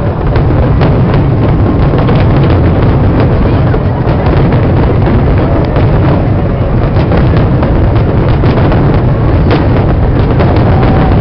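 New Year's fireworks display going off in a dense, unbroken barrage of loud booms and crackling pops over a deep rumble, with crowd voices mixed in.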